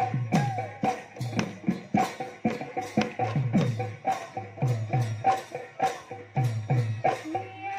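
Bihu music: dhol drums playing a fast, driving rhythm. The deep strokes bend down in pitch and are mixed with sharp clicking hits, under held melody notes.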